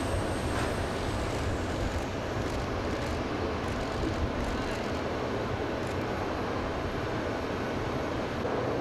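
Jet aircraft engines running steadily at idle on the tarmac, with a thin high whine that fades out about two seconds in.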